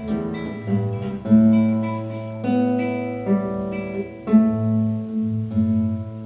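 Solo acoustic guitar playing a piece: plucked chords and single notes struck roughly once a second and left to ring.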